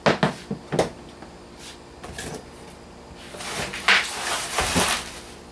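A few sharp knocks of items being set down, then plastic bubble-wrap packing crinkling loudly as it is handled in a cardboard box.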